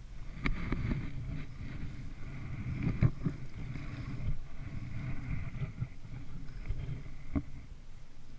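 Kayak being paddled: paddle blades dipping and splashing in the water, with the paddle knocking sharply against the kayak three times, loudest about three seconds in, over a steady low rumble.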